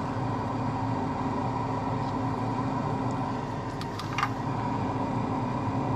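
Steady hum of a solder fume extractor fan, with a few faint clicks of a metal tool against the chip about four seconds in.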